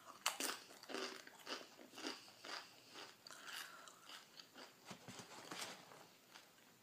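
Cheetos Puffs being crunched and chewed close to the microphone: a run of crisp crunches, about two a second.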